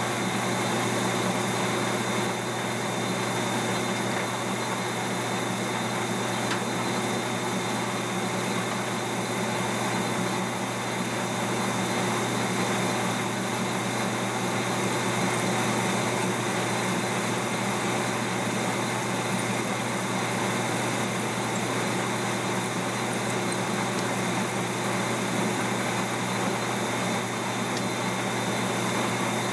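Metal lathe running with a steady hum while a cutting tool turns down a bolt head, throwing off chips.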